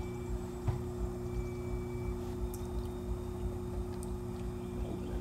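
Electric potter's wheel running, a steady motor hum with a low rumble while wet clay turns on it, and a single light knock under a second in.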